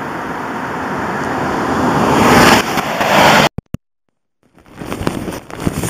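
Hiss of tyres on a wet highway swelling for about two and a half seconds and then falling away, like a vehicle passing. It cuts off suddenly to silence for about a second, then wind buffets the microphone while riding in the rain.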